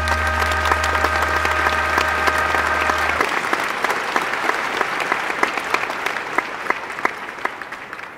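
Crowd applause, dense clapping, over a held music chord with a deep bass note that ends about three seconds in; the applause then fades away.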